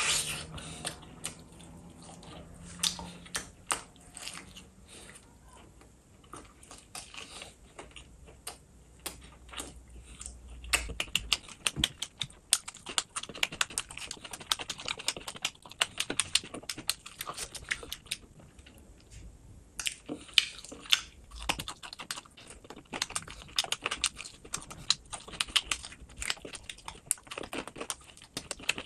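Close-miked eating of a chicken drumstick: chewing, lip-smacking and meat being bitten off the bone make a run of sharp wet clicks and smacks. They are sparse at first and come thick and fast from about a third of the way in.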